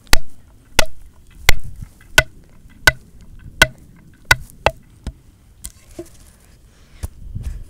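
Sticks being chopped or struck: about eight sharp wooden strikes at a steady pace, roughly every 0.7 seconds, then a few lighter, irregular knocks.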